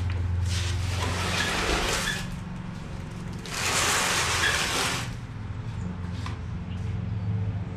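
Honda D16 short block on a wooden board dragged across a concrete floor: two scraping pushes, one about half a second in lasting over a second, a louder one about three and a half seconds in, over a steady low hum.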